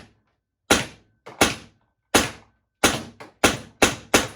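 FN303 compressed-air less-lethal launcher firing Joule V2 projectiles in semi-automatic: six sharp shots, coming quicker towards the end.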